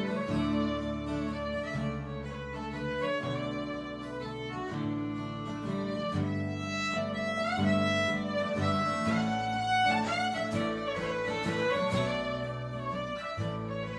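Fiddle and guitar playing an instrumental tune together, the fiddle carrying the melody with slides between notes over strummed guitar chords.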